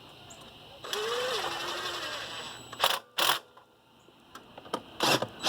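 Air intake parts being handled and fitted onto a turbo inlet: a scraping rub lasting about two seconds, then sharp clicks and knocks, two about three seconds in and several more near the end.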